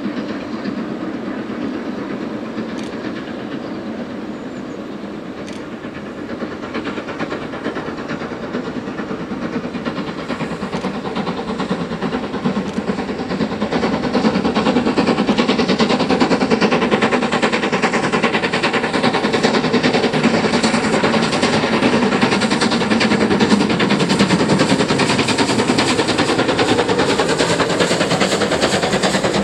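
LNER K1 class 2-6-0 steam locomotive hauling a train of coaches, its exhaust and running noise growing louder through the first half as it approaches, then holding steady.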